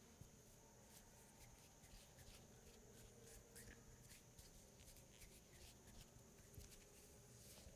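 Faint, soft rubbing and scratchy brushing of hands massaging oiled skin and hair, in many short, irregular strokes.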